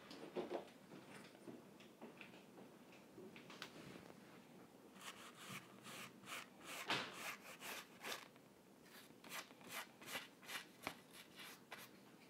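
Faint paintbrush strokes on a canvas: short rubbing and dabbing strokes, a few at first, then a quick run of them from about halfway through.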